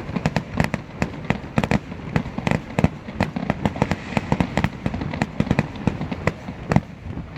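Aerial fireworks display: a rapid, irregular run of bangs and cracks, several a second, over a low rumble of booms.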